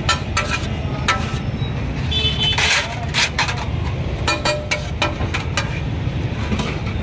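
Flat metal spatula scraping and clinking on a large iron griddle as fried rice is turned and piled, giving a run of sharp, irregular clinks and scrapes, some with a brief metallic ring. A steady low rumble runs underneath.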